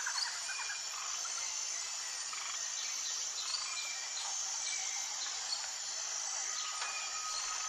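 Nature ambience: a steady high chorus of insects, with scattered short bird chirps and calls over it.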